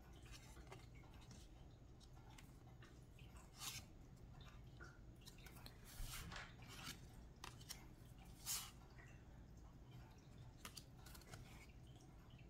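Faint handling of a deck of oracle cards: soft slides and light snaps of cardstock as cards are pushed off the deck into the other hand, the clearest snaps about four, six and eight and a half seconds in.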